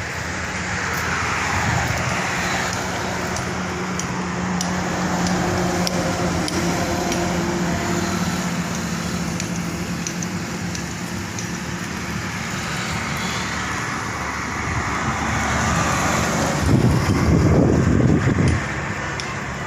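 Roadside traffic noise: vehicles passing with a steady engine hum, one going by close and louder about three-quarters of the way through.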